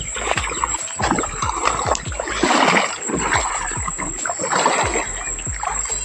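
Legs wading through shallow river water, splash after splash as each stride pushes through the current.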